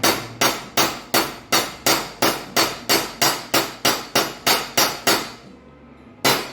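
Hammer blows on a steel nut, driving it into a drilled hole in steel plate to sit flush. The blows come in a quick, even series of about three a second with a metallic ring, stop for about a second near the end, then start again.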